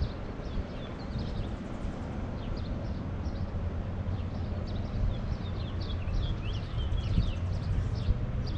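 Wind buffeting the microphone with a steady low rumble, while small birds chirp over it in short high calls, busiest in the second half.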